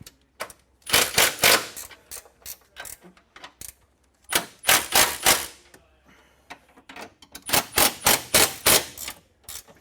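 Socket ratchet clicking in three quick runs, turning bolts in the engine bay.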